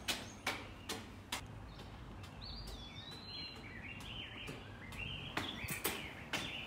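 Hard-soled footsteps on stone, about two steps a second, stopping about a second and a half in. A small bird then sings a run of short warbling notes, and more footsteps start again about five seconds in.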